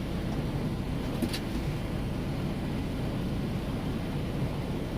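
Steady low rumble of an idling semi-truck diesel engine, with a brief faint click about a second in.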